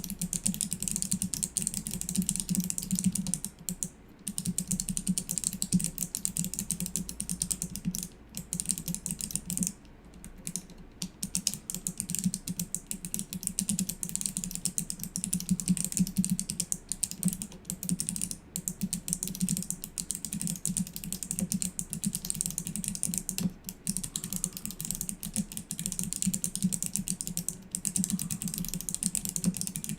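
Fast, continuous typing on a clicky mechanical keyboard with no keycaps, on Kailh Box Navy switches: rapid irregular clicks of bare switch stems, with a few brief pauses.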